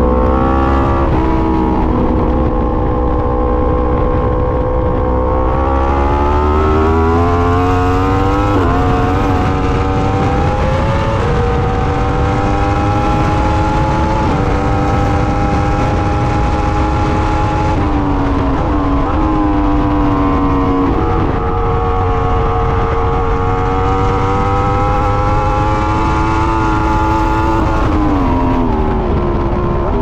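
Yamaha R1's inline-four engine under hard acceleration on track, its pitch climbing through the gears with a quick drop at each upshift. About 18 seconds in it falls in steps through several downshifts under braking, then pulls hard again and downshifts once more near the end, over steady wind rush.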